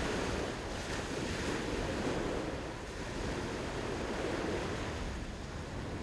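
Sea surf washing onto a sandy beach, a steady wash that swells and eases every couple of seconds, with wind buffeting the microphone.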